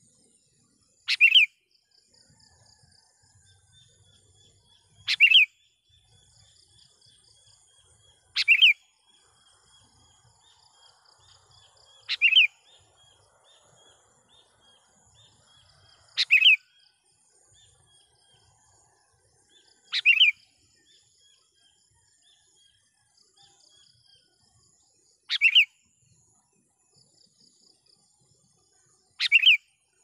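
Sooty-headed bulbul (kutilang) giving short, loud calls about every four seconds, eight in all, over faint insect trilling.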